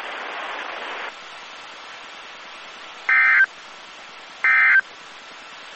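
Radio static hiss that drops a little after about a second, then short digital data bursts of NOAA Weather Radio's SAME end-of-message code, about a second apart: two bursts, and a third starting at the very end. They mark the end of the weekly test message.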